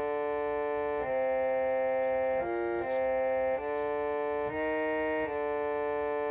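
Harmonium playing a slow melody line: reedy held notes with a lower note sounding under them, moving to a new pitch about once a second, seven or eight notes in all.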